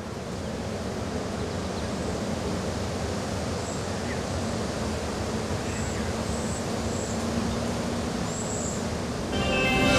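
Steady rushing ambient noise, like wind or surf, swelling in over the first couple of seconds, with a few faint high chirps in the middle. Music with sustained notes comes in just before the end.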